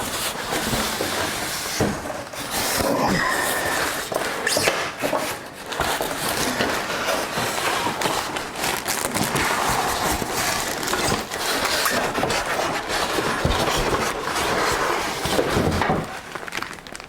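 Cardboard box and packaging being handled at close range: continuous rustling and scraping with frequent knocks.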